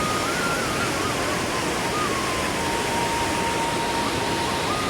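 Steady rushing water, like a stream or waterfall, with a faint high tune stepping between a few notes over it and holding one low note for a couple of seconds in the middle.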